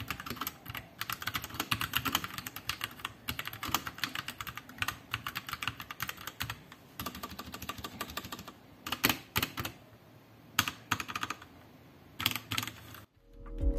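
Royal Kludge RK84 mechanical keyboard in stock form being typed on: a fast run of keystroke clacks for about eight seconds, then a few scattered keypresses that stop shortly before the end.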